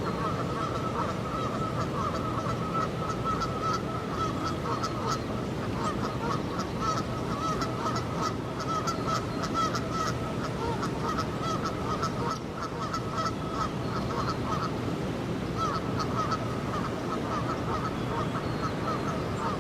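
A flock of geese honking continuously, many calls overlapping, over a steady background rush.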